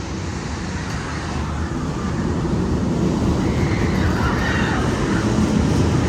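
Roller-coaster tunnel sound effect: a loud, steady rumble with a hiss over it, like a passing aircraft or heavy vehicle, slowly growing louder.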